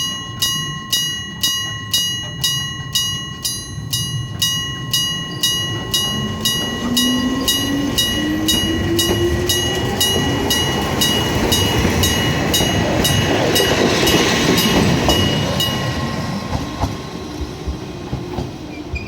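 Electric bell of a Japanese level crossing ringing rapidly, a little over two strikes a second, as a Hokuriku Railroad 7700 series electric train pulls away from the station. The train's motor hum rises in pitch as it accelerates, and its running noise swells loudest as it passes the crossing. The bell stops a few seconds before the end, leaving the train's rumble and wheel clatter.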